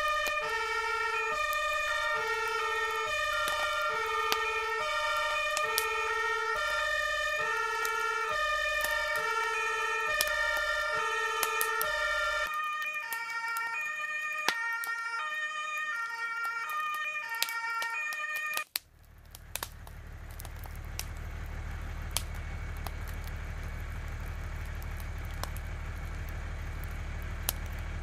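German two-tone fire engine siren alternating between a high and a low tone, each held about 0.7 seconds, for about the first twelve seconds. The low tones then drop out and a thin steady high tone carries on until the sound cuts off abruptly about 19 seconds in. After the cut, a steady low rumble with scattered crackles.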